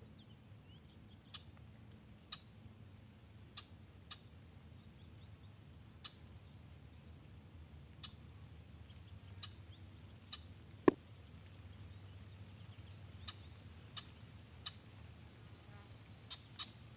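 Faint chirping of small birds with scattered light ticks, and about eleven seconds in a single sharp crack, the shot of a moderated EDgun Leshiy 2 .30-calibre PCP air rifle.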